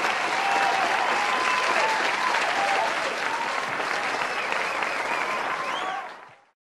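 Crowd applauding and cheering, with shouting voices over dense clapping; it fades out quickly near the end.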